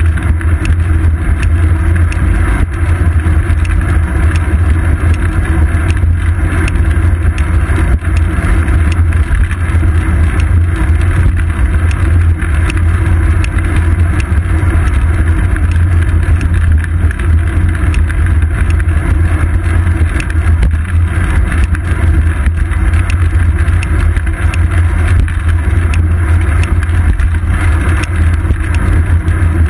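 Loud, steady low rumble of wind buffeting and road vibration picked up by a seat-post-mounted camera on a bicycle rolling along pavement, with faint small ticks and rattles throughout.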